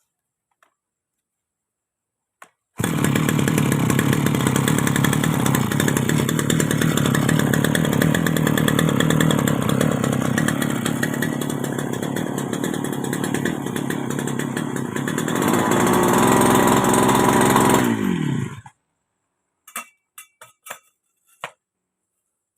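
Small two-stroke brush cutter engine starts abruptly and runs steadily for about fifteen seconds, revving up a little near the end before it is shut off and winds down. A few light clicks follow.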